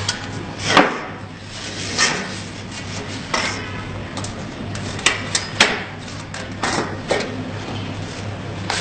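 Sheet-metal notching machine for channel-letter strip punching notches into metal strip: about eight sharp metallic strikes at uneven intervals over a steady low hum.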